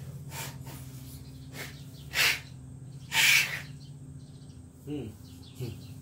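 Several short puffs of breath blown through a long slotted metal gas-boiler burner tube to clear it of dust. The last two, about two and three seconds in, are the loudest. A steady low hum runs underneath.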